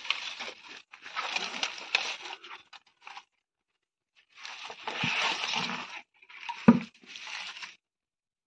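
Rustling and crunching of fresh green fodder in a plastic tub as a calf feeds from it, in several bursts with short pauses, and a couple of dull knocks near the middle.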